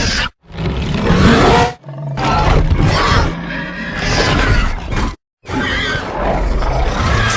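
Custom Indoraptor creature sound effects: a string of separate roars and growls, cut off abruptly by short dead silences about half a second, two seconds and five seconds in.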